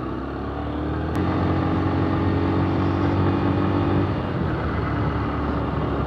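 Yamaha YBR-G 125 cc single-cylinder four-stroke motorcycle engine running under way, with steady wind and road noise. The engine note climbs a little in the first seconds, then holds steady. A single sharp click comes about a second in.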